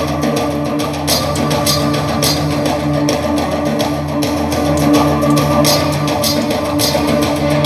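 Music: sustained low notes held under a steady beat of percussion hits.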